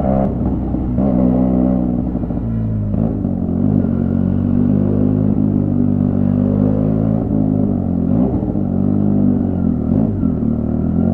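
Motorcycle engine running on the move, its pitch rising and falling as the throttle opens and closes, with a drop in pitch right at the start.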